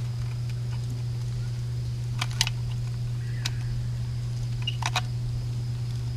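A few light metallic clicks and taps as hands handle the chain and fittings on a seized outboard bracket, over a steady low hum.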